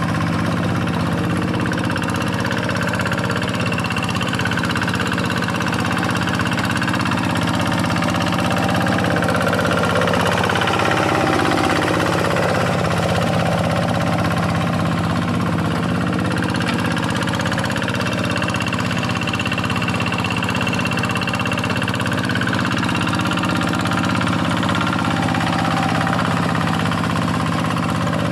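Quick G1000 hand tractor's Kubota single-cylinder diesel engine running steadily while ploughing, its pitch dipping briefly about halfway through and then recovering.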